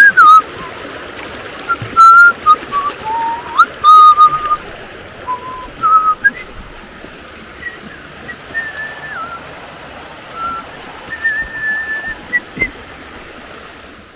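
A person whistling a slow tune: clear held notes that step up and down in pitch with short slides between them, over the steady rush of a stream.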